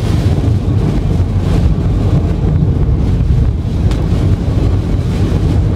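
Heavy-rain driving noise inside a car's cabin: a steady low rumble of tyres on a flooded road under an even hiss of rain on the roof and windshield.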